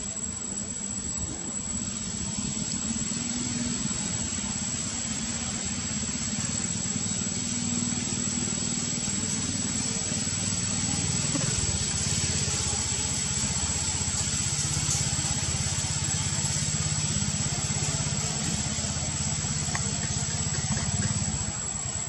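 An engine running steadily with a low hum whose pitch shifts about halfway through, under a constant high hiss.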